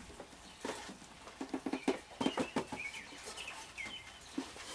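Sawdust sliding and being shaken off a wooden board into a tin can, a run of irregular rustles and light knocks. Short bird calls chirp now and then in the background.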